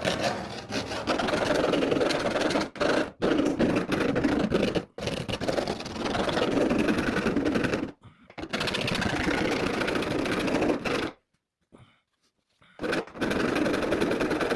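A file rasping along the freshly cut edge of a hole in a van's bare sheet-metal roof, deburring it. It goes in runs of a few seconds broken by short pauses, with a longer pause near the end.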